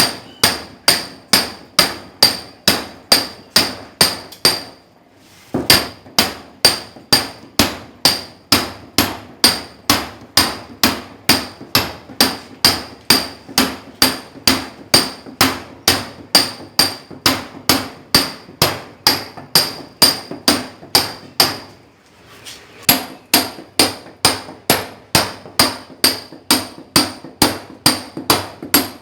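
A hammer (marreta) striking a steel chisel or point on masonry, steadily at about two and a half blows a second, each blow with a short metallic ring. The blows pause briefly about five seconds in and again near 22 seconds.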